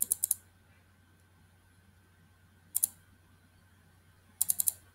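Computer mouse clicking in three short clusters of rapid clicks, one at the start, one about halfway through and one near the end, as a material library is scrolled and clicked through.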